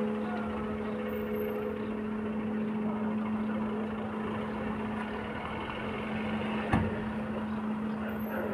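The last of the church bells' ringing dies away at the start. After that comes a steady low hum over a constant background noise, with one sharp knock about two-thirds of the way through.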